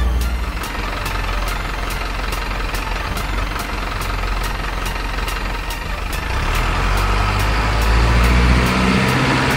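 Heavy diesel truck engine sound from an RC model truck, running low and steady, then rising in pitch from about six seconds in as it revs under load, with a regular ticking about three times a second over it.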